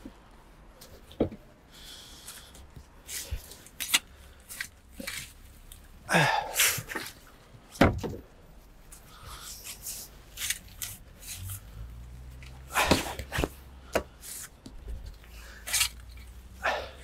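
Garden fork turning a hot compost heap: irregular crunching stabs and rustles as the tines go into the rotting material and forkfuls are lifted and thrown, a few seconds apart.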